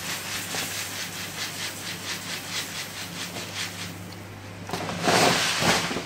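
Dry jasmine rice pouring from a plastic bag into an aluminium pot: a rhythmic hiss of falling grains, then a louder rustling rush near the end as the bag is tipped and lifted.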